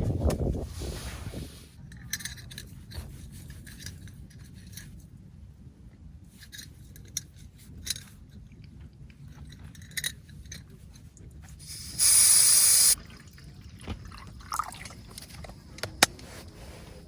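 Quiet handling of camp gear: scattered light clicks, clinks and scrapes, with a loud hiss lasting about a second about twelve seconds in.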